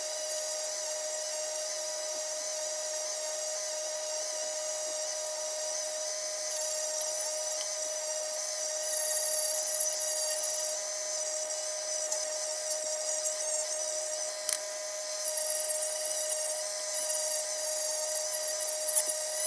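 Small high-speed rotary tool running at a steady whine while it rubs against metal, polishing the tarnished brass of a lantern burner.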